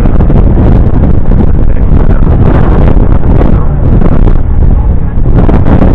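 Wind buffeting the microphone over the steady running of a river cruise boat's engine, a loud, dense low rumble.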